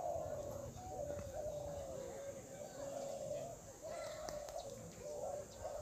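Many caged derkuku doves cooing at once, their low coos overlapping and following one another without a break.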